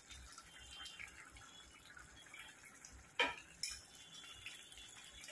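Mutton keema simmering faintly in an open pressure cooker while a metal ladle stirs it. A little past halfway the ladle knocks sharply against the pot twice in quick succession.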